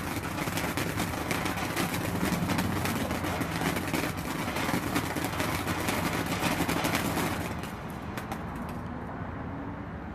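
Shelton's Fireworks Glittering Gold fountain burning, a steady spark-spraying hiss with dense crackling. It dies down about eight seconds in and is gone near the end.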